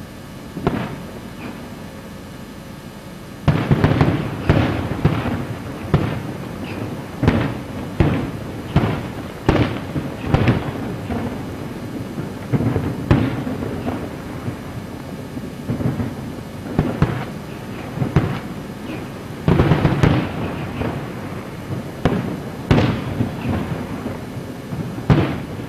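Aerial fireworks shells bursting: a single boom under a second in, then a rapid, irregular string of booms from about three and a half seconds in, each trailing off in a rumble.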